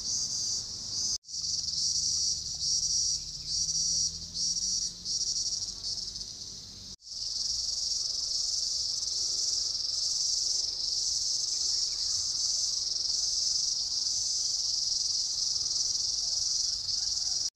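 Cicadas calling: a high, shrill buzzing chorus, pulsing on and off about twice a second at first, then a steady unbroken drone from about seven seconds in.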